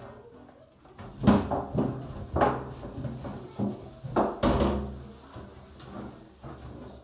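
About six separate knocks and clunks of household objects being handled, strongest between one and five seconds in.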